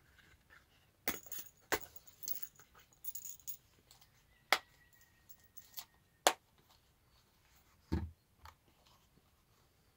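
Leather business card holders with metal snap fasteners being handled: a few sharp clicks and light rustles, then a soft thump about eight seconds in as one is set down on the felt-covered table.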